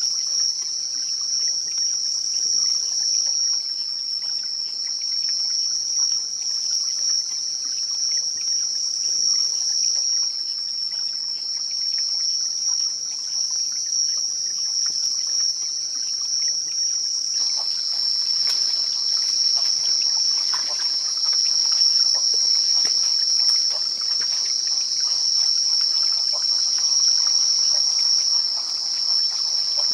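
Steady, high-pitched chorus of insects chirring without a break. From about halfway through, faint rustling and small clicks join it.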